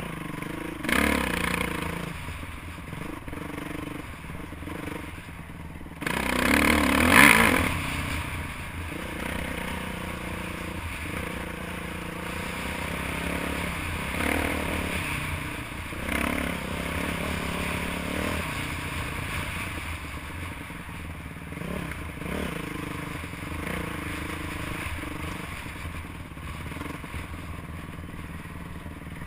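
Off-road dirt bike engine heard from on board, revving up and dropping off again and again as the rider works the throttle over a rough trail, with rattling from the bike. A louder rushing surge comes about a quarter of the way in.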